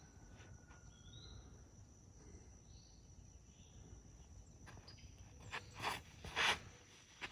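Steady high-pitched drone of insects, crickets or similar, with a few short rising bird chirps in the first few seconds. Near the end come two louder brief scuffing sounds about half a second apart.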